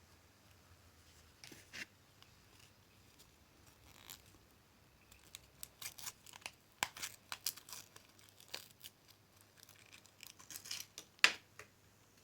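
Alka-Seltzer tablet fizzing in a vase of water: faint, irregular crackles and ticks of bubbles bursting at the surface, thickening in the middle, with one sharper click near the end.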